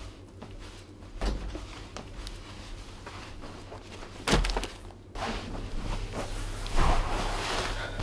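A person moving on a carpeted floor: footsteps and a couple of dull thuds, then a longer stretch of clothing rustling as they sit and lie down on the floor, over a low steady hum.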